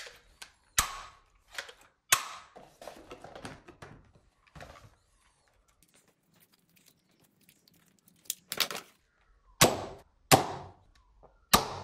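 Plastic clicks and rattles of a toy foam-dart blaster being handled and loaded, with a quiet stretch in the middle, then several sharp snaps about a second apart near the end as it is cocked and fired.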